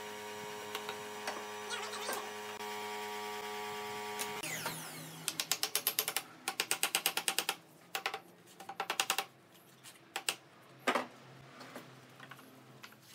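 Runs of rapid ratcheting clicks from a hand tool, likely a ratcheting clamp, as it is worked on a pine frame rail. The runs come in bursts of about a second each, with a few single clicks near the end. A steady hum fills the first four seconds.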